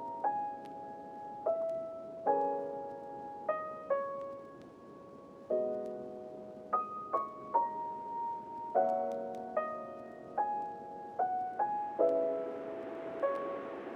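Slow background piano music: chords and single notes struck about once a second, each dying away.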